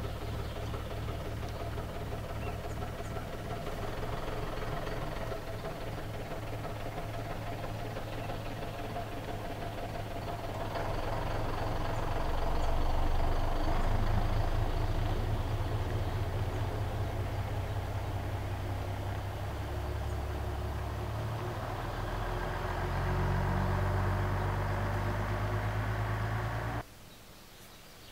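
A steady, low, pulsing drone with several held tones that shift in steps, cutting off abruptly near the end.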